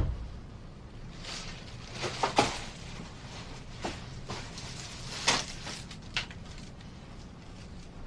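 A few scattered soft knocks and rustles, two close together about two seconds in and another just after five seconds, over a low steady hum.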